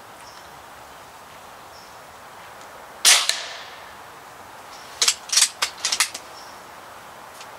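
Barra 1100Z .22 PCP pellet rifle firing once, a sharp crack with a short fading tail about three seconds in. About two seconds later comes a quick run of about five short clicks, typical of the action being cycled to chamber the next pellet.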